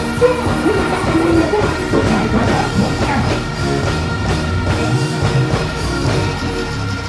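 Loud live band music played through a concert sound system, with a melody line moving over a dense, steady backing.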